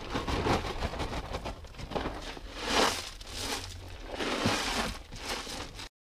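Gravel being scraped and spread by hand, mixed with the crinkling of an emptied plastic gravel bag, in uneven rustling bursts; it cuts off suddenly near the end.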